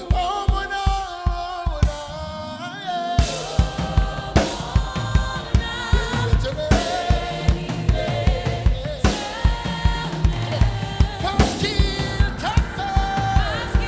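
Live gospel worship music: singers and congregation holding long sung notes over a drum kit's steady kick-drum beat. The drums fill out with cymbal crashes from about three seconds in.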